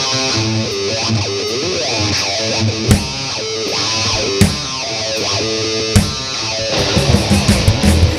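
Rock band playing live: a distorted electric guitar riff with heavy accented hits about every second and a half, and a quick run of sharp hits near the end.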